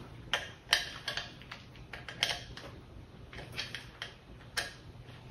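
Irregular light clicks and taps of small hardware being handled: caster wheels and a small flat wrench being fitted to the table legs, with a few sharper clicks among softer ones.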